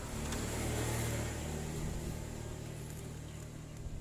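Small single-cylinder motorcycle engine of a Honda Supra-type underbone bike idling steadily, slowly getting quieter.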